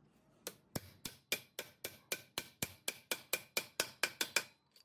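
Hammer tapping a steel pipe used as a driver over an electric motor's rotor shaft, seating a ball bearing on the shaft: a quick, even run of about four metallic strikes a second, each with a short ring.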